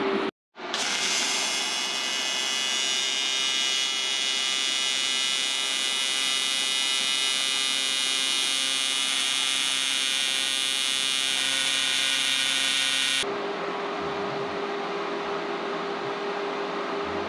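AC TIG welding arc on an aluminium intercooler end tank: a steady electric buzz that holds for about twelve seconds. The arc then cuts off suddenly, leaving a quieter steady hum.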